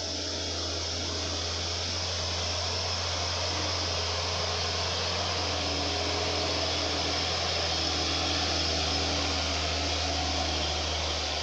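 Diesel engine of a loaded Hino 500 tandem-axle dump truck running under load as it climbs slowly past, a steady low drone under a broad rushing noise that swells as the truck comes closest, about eight seconds in, then eases slightly.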